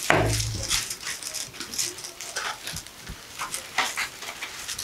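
A low thump right at the start, then scattered rustling and light handling noise as a cloth drawstring pouch is handled and worked open by hand.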